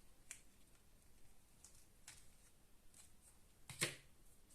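Near silence with a few faint clicks and taps of small objects being handled and set down, the loudest a sharp tap near the end.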